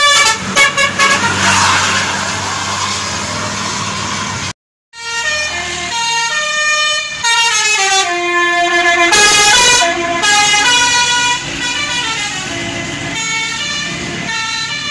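Tour-bus 'basuri' musical horns playing melodies. Short rhythmic toots come first, then after a brief break a horn plays a tune of stepped notes that rise and fall.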